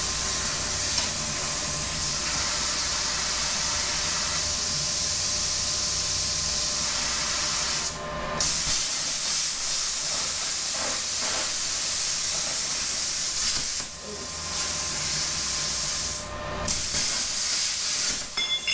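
Handheld plasma cutter cutting steel plate: a steady, loud hiss of air and arc over a low hum, stopping briefly twice.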